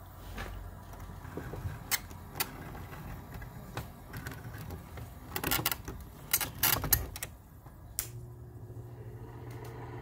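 Clicks and knocks from the controls of a Goldstar window air conditioner being worked. About eight seconds in, the unit starts up with a steady low hum.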